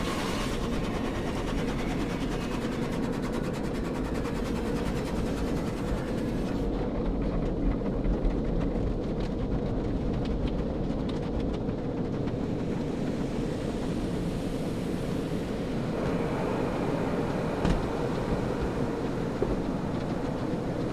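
An automatic car wash heard from inside the car: a steady rumble of water spray and rotating brushes working over the body and windows, with a patter of quick slaps and clicks around the middle.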